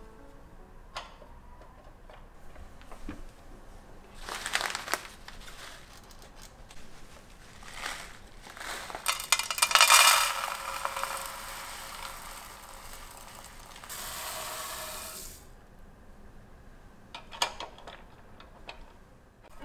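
Rice flour poured from plastic bags into a plastic container on a kitchen scale: crinkling of the bags and a dry, hissing pour, in several separate bouts. The longest and loudest pour comes about halfway through.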